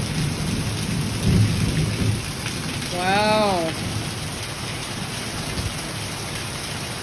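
Heavy monsoon rain pouring down steadily, with a low rumble of thunder through the first couple of seconds that then fades.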